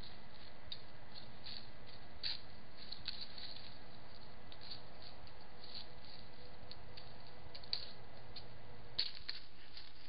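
Steady hiss and faint electronic tones of a trail camera's own microphone and circuitry, with faint scattered ticks and a slightly louder click about nine seconds in.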